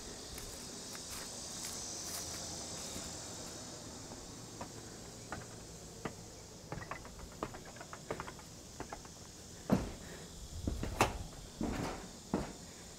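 Steady high-pitched insect chorus in summer heat, with scattered clicks and, in the last few seconds, several louder knocks and thumps of someone climbing a wooden ladder up to a corrugated metal roof.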